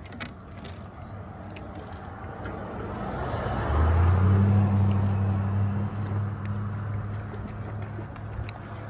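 An engine passing close by. Its sound swells over a few seconds, is loudest about four to five seconds in, then eases off, leaving a steady low hum.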